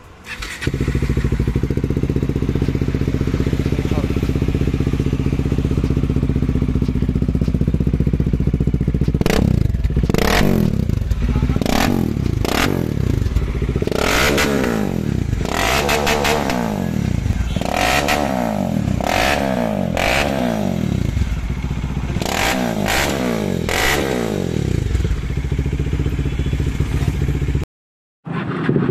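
Bajaj Dominar 400's single-cylinder engine, breathing through an Akrapovic slip-on with the catalytic converter removed, starts about half a second in and idles steadily. From about nine seconds in it is blipped through a quick series of sharp revs, each rising and falling, then settles back to idle before the sound cuts off near the end.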